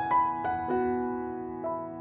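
Soft background piano music: single notes struck a few times a second, each ringing and fading.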